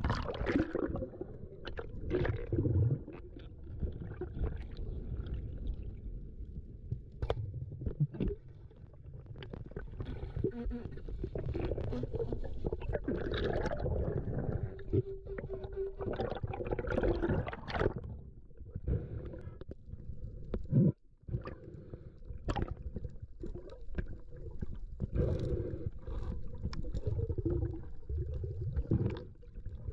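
Water noise heard underwater: a muffled low rush and gurgling with sharp clicks scattered throughout, and a brief steady hum about halfway.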